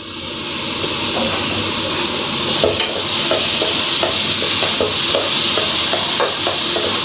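Chopped onions sizzling in hot oil, the sizzle growing louder over the first second. From about two and a half seconds in, a spoon scrapes through them in repeated strokes as they are stirred.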